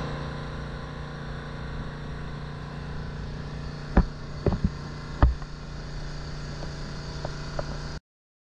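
A steady low mechanical hum with a few sharp knocks, the loudest about four and five seconds in. It cuts off suddenly shortly before the end.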